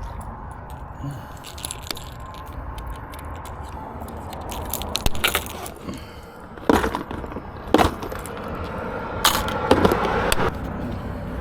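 Fishing tackle being handled after a cast: a run of small clicks and rattles with a few louder knocks in the second half, over a steady low rumble of road traffic.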